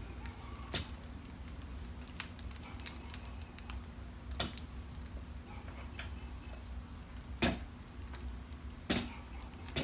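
Scattered light clicks and knocks of a screwdriver and metal parts working the cross bolt of an SKS rifle stock into position, with one sharper knock about seven and a half seconds in, over a faint steady hum.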